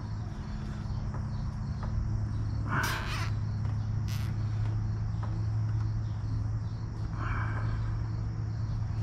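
Two harsh crow caws, about four seconds apart, over a steady low hum.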